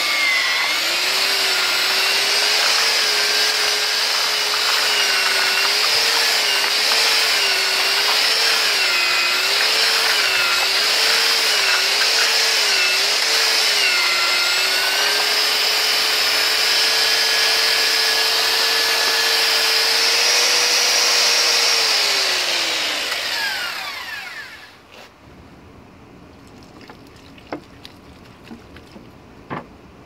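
Handheld electric paddle mixer running in a bucket of sand and Portland cement, its motor whine wavering up and down in pitch as the paddle works through the mix. Its pitch then steadies, and about three quarters of the way through it winds down and stops. A couple of faint knocks follow.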